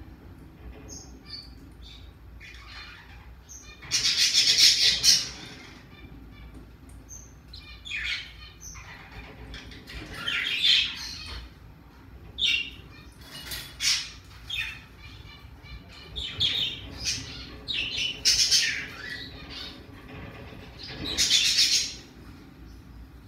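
Pacific parrotlet giving harsh squawks and chirps in short irregular bursts. The longest and loudest burst comes about four seconds in and lasts over a second.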